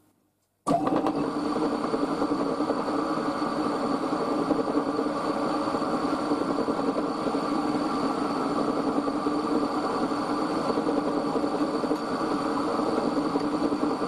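Milling machine's end mill cutting a brass bar: a steady, dense machining noise that starts abruptly about a second in, with a thin steady high whine above it.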